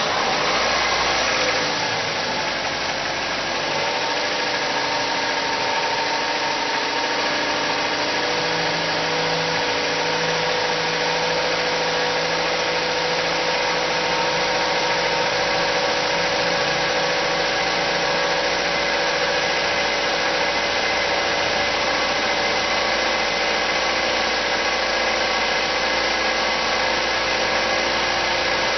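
Car engine just after starting, its speed easing down over the first few seconds and then idling steadily. The owner suspects a vacuum leak is raising this engine's idle.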